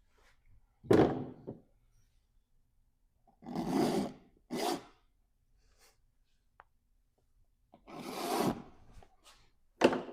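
Oil-paint brush scrubbing on canvas: about five short rubbing strokes, with pauses between them.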